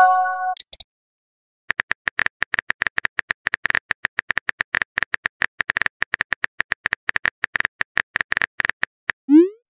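Texting-app sound effects. A short chime of a few tones plays as a message posts. After a pause, a fast run of phone keyboard typing clicks goes on for about seven seconds, and a short rising whoosh of a message being sent comes near the end.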